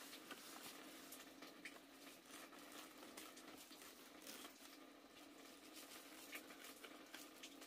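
Very faint handling sounds: soft scattered snips of scissors and the rustle of dong leaves being cut and folded.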